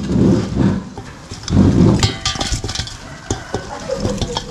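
Fried chicken pieces tumbling from one stainless steel bowl into another, the bowls knocking and clinking against each other and the pieces. There are two loud low rumbles near the start and about a second and a half in, then a run of light knocks and clicks.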